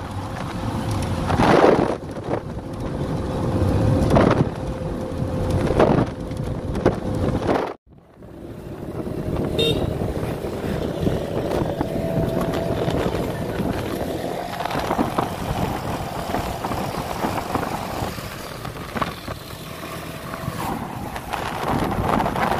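Road and wind noise inside a moving car on a highway, swelling loudly a few times. About eight seconds in it cuts off abruptly and gives way to steady street traffic noise.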